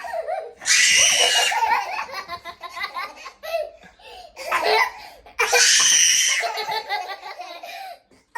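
Small children laughing and giggling in a small room, with two loud, shrill screams about a second long: one about a second in and another about five and a half seconds in.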